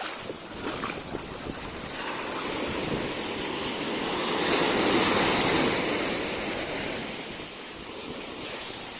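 Sea waves on the shore: the surf rises into one wave that peaks about halfway through, then washes back down.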